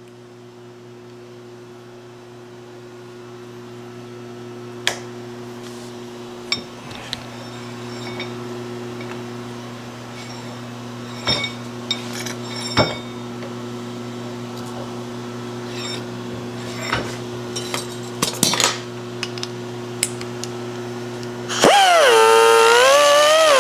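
Metal tools and parts clinking and knocking now and then over a steady electrical hum. Near the end a much louder sound with a wavering pitch starts.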